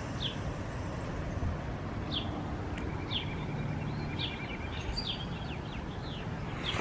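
Small birds chirping outdoors, short high chirps every half second to second, over a low steady rumble of background noise.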